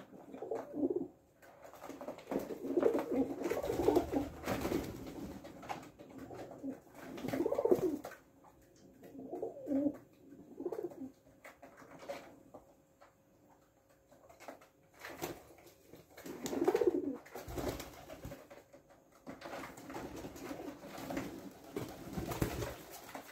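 Feral rock pigeons cooing in repeated low bouts, with a flurry of wingbeats near the end as one takes off.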